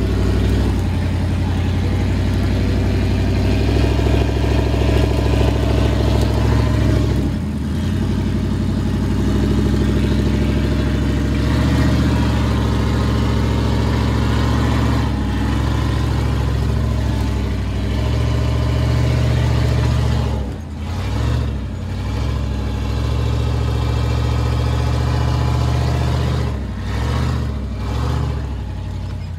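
Toyota LandCruiser 80 Series off-road truck's engine running hard under throttle, its pitch stepping up and down as the throttle is worked. The throttle is briefly lifted a few times, about a quarter of the way in and again several times in the last third.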